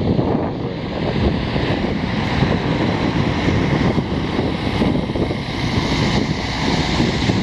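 Road traffic going by: a diesel semi-truck pulling a shipping container and several cars pass in a steady rumble of engines and tyres, with wind buffeting the microphone.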